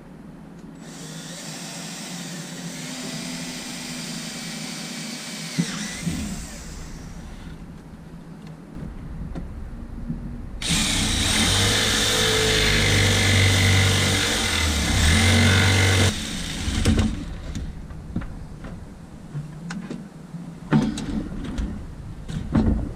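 A power tool running in two stretches, a few seconds each, the second louder and steadier, followed by a few sharp knocks near the end.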